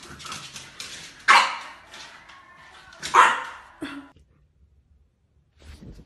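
French bulldog puppy barking twice, about two seconds apart.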